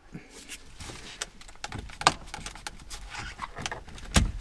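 A Torx screwdriver levering the airbag's metal retaining bar behind a steering wheel: irregular small clicks and scrapes of metal and plastic, with sharp clicks about two seconds in and again near the end as the airbag clip is worked free on one side.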